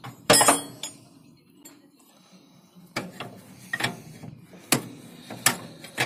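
Steel spanner clinking on a bolt and the surrounding metal of a combine harvester's chain drive as it is turned. There is a loud clank about a third of a second in, then a run of sharp separate clinks from about three seconds on.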